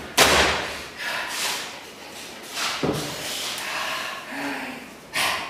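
Actors moving on a stage: a sudden thump just after the start, then rustling of cloth and paper with a few short noisy swells as one actor picks up and handles a letter.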